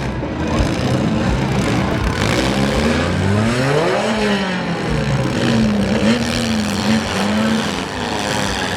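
Four-cylinder demolition derby car engines revving up and down in pitch, repeatedly, over a loud steady din.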